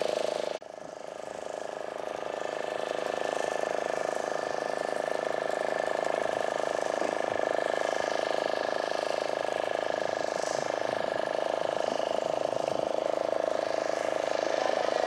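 Steady drone of a boat engine running at a constant speed. It cuts out briefly about half a second in and fades back up.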